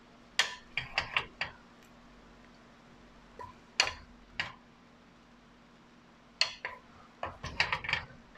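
Wooden spatula knocking against ceramic dishes while shrimp and kimchi are scooped from a casserole dish onto a plate: a quick run of knocks about half a second in, two single knocks near the middle, and a faster cluster near the end.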